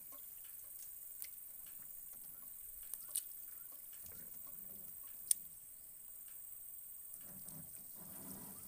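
A fish trap being hauled up alongside a wooden boat: a few sharp clicks and knocks, one standing out about five seconds in, with faint water sloshing as the trap comes up to the surface near the end.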